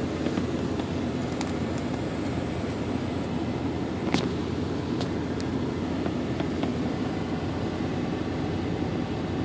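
Steady low rushing noise inside a pickup truck cab, with a few light clicks and rustles of a paper slip being drawn out of a hat and handled, the sharpest about four seconds in.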